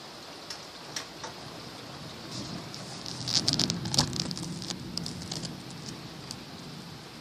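Steady rain with drops ticking sharply on a nearby surface. A low rumble of thunder swells from about two and a half seconds in and fades again, with a burst of loud drop ticks near its peak.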